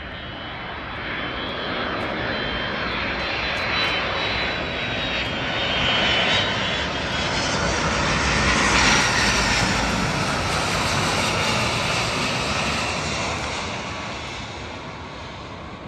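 Jet airliner passing, its engine noise swelling to a peak about halfway through and then fading, with a high whine over the first few seconds.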